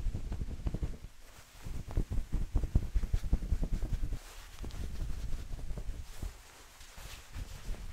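Terry-cloth towel rubbed close against the microphone, giving a muffled rustle with a low rumble in uneven bursts, loudest from about two to four seconds in.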